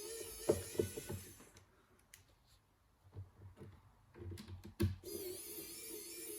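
Small cordless electric precision screwdriver running with a steady whine as it backs out laptop screws. It stops about a second and a half in and starts again about four seconds in, with a few short clicks and taps in between.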